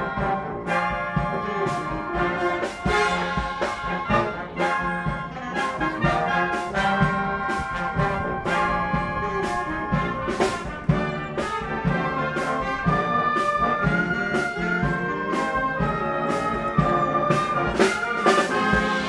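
Wind orchestra playing a sixties soul arrangement, brass to the fore, with held chords and a melody line over a steady drum beat of about two strokes a second.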